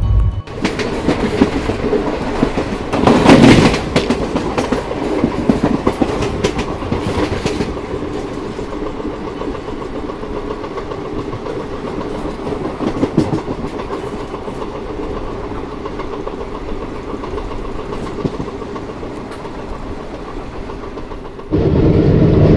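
Passenger train running on the rails: a steady rumble with the clickety-clack of coach wheels over rail joints, and a brief louder rush about three seconds in.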